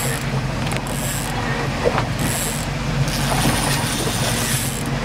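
Boat engine running steadily with a low hum, under wind and wave noise.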